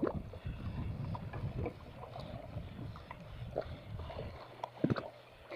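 Choppy sea water slapping against a small boat's hull, under a low rumbling noise, with scattered small knocks and one sharper knock about five seconds in.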